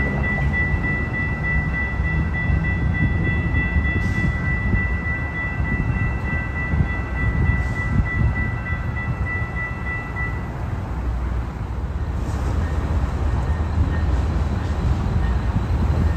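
Tri-Rail diesel commuter train approaching the station: a steady low rumble that grows heavier in the last few seconds as it nears. For the first ten seconds a high, steady ringing chord of several tones sounds over it, then stops.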